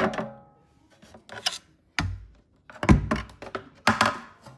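Thin sheet-metal access panel of a dishwasher being worked loose and pulled off, giving about five separate knocks and clanks, the first with a short metallic ring.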